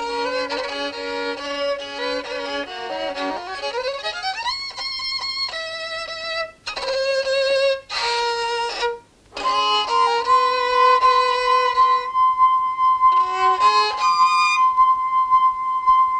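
A solo violin plays a tune. About three seconds in it makes a long upward slide, there are a few short breaks, and through the second half it holds one long high note.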